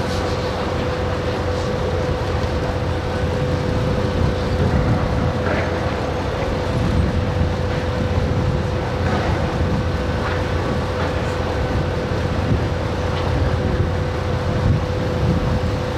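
Heavy lifting machinery running steadily: a diesel engine's low rumble with a constant hum, and a few faint knocks.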